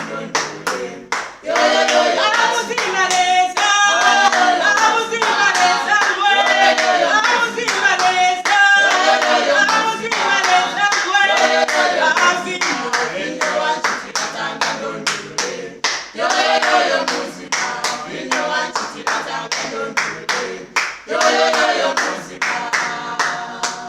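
Praise team singing a cappella as a group, with steady rhythmic hand clapping on the beat.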